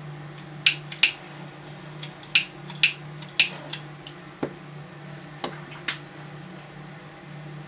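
Smoke matches being struck and handled over a tray: about ten sharp clicks and scratches in the first six seconds. Under them is the steady low hum of a solder fume extractor fan running on its lowest speed.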